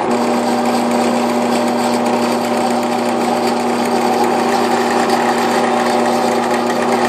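Central Machinery 12-speed benchtop drill press just switched on and running steadily at speed, its motor giving a steady hum with a strong low tone over a whirring noise. The end mill spins free in the chuck, not yet touching the aluminium workpiece.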